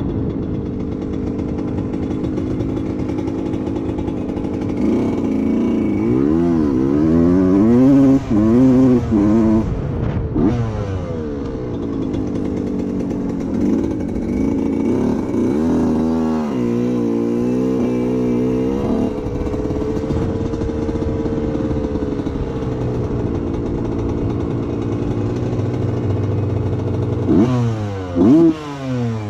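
1990 Suzuki RM125 two-stroke single-cylinder engine being ridden, revving up and down repeatedly. The pitch rises and falls in quick swings several times, with a brief cut in the sound about ten seconds in.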